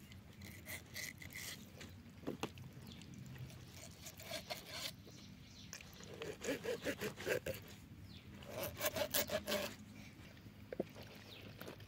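Kitchen knife sawing back and forth through the skin and flesh of a whole raw chicken, scoring it, in two runs of quick strokes in the second half.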